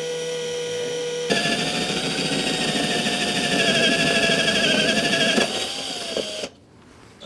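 Cordless drill with a spade bit spinning freely with a steady whine. About a second in, the bit bites and grinds through the fiberglass deck skin into the plywood beneath for about four seconds, the motor's pitch wavering under load. It then runs free again, winds down and stops near the end.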